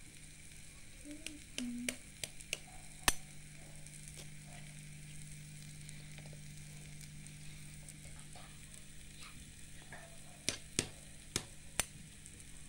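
A hen's egg being cracked and its shell broken open: sharp taps and clicks, a handful in the first three seconds and four more near the end, over a faint steady hum and light hiss.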